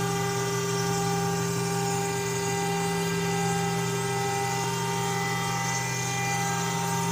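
QUICK K6100A CNC router running on a test run: a steady machine hum with a constant whine above it, holding one pitch throughout.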